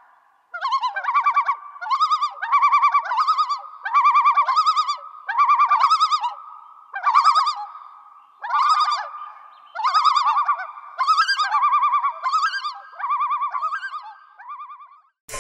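A bird calling in a run of about a dozen short, fast-warbling phrases, each under a second long, repeated roughly once a second.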